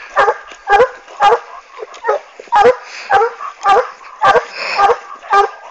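Hunting dog barking steadily, about two barks a second: a hound giving tongue while working a wild boar trail.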